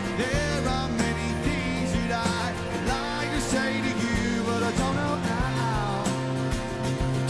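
Live rock band playing: a sung lead vocal over guitars and a steady drum beat.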